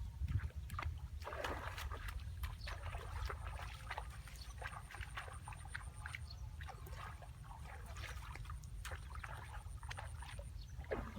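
Irregular splashing and sloshing of water, many small splashes in quick succession, over a low steady rumble.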